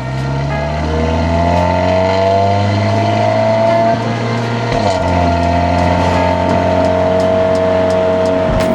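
Audi A4 B9's 2.0 TFSI turbocharged four-cylinder engine pulling under acceleration, its pitch rising slowly. About four to five seconds in there is a brief dip, a gear change, and the engine then runs on at a steady pitch.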